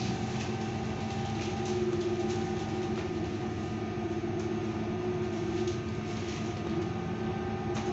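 LiAZ-6274 electric bus running at a steady speed, heard from inside the cabin: the electric drive's steady whine of several held tones over tyre and road noise, with a few faint rattles from the cabin fittings.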